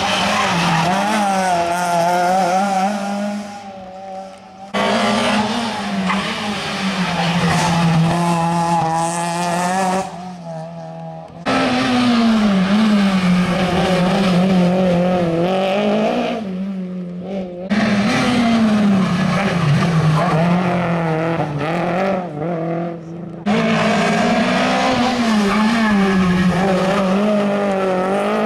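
Rally car engines revving hard as several small hatchback rally cars in turn take a bend on a tarmac stage, the revs rising and falling through gear changes. The sound cuts abruptly from one car to the next about every five to six seconds.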